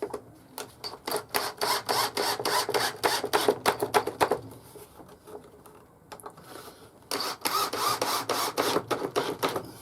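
Screws being driven back into the wooden sled, a fast run of sharp clicks from the screwdriver, then a pause and a second run for the next screw.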